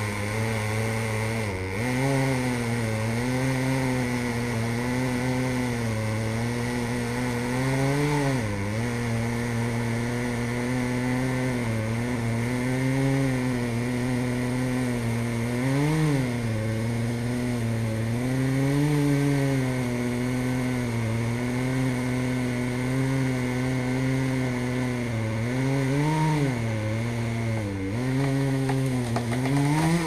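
Two-stroke chainsaw running at high revs while cutting through a tree trunk, its engine pitch dipping and rising as the chain bites into the wood.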